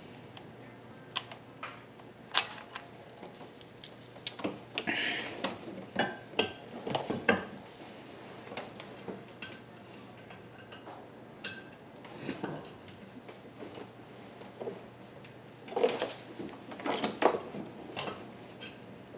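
Irregular metallic clinks and clanks of hand tools and steel parts knocking together while working on engine-mount hardware, busiest about four to seven seconds in and again near the end.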